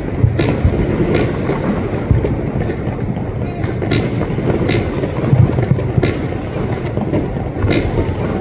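Distant fireworks shells going off: about six sharp bangs, a second or more apart and some in close pairs, over a steady low rumble.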